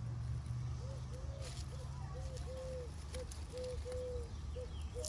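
A bird calling outdoors: a run of short, low, arching notes of varied length, starting about a second in. A low steady hum underneath stops about halfway through.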